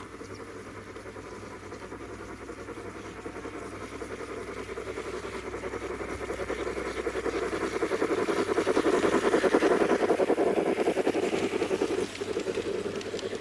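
Garden-scale model steam train, a locomotive pulling coaches, rolling along its track with a fast, even rattle of wheels on rail. It grows louder as the train approaches, is loudest as it passes close by, and dips briefly near the end.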